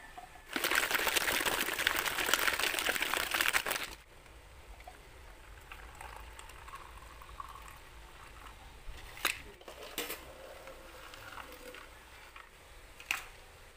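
Milk tea poured from a shaker and a jug into plastic cups over tapioca pearls: a loud, splashy pour for about three seconds near the start, then softer pouring with a few light knocks.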